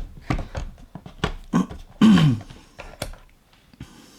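Irregular clicks and light knocks of a multimeter and its test leads being handled on a bench, with one short falling vocal sound about two seconds in.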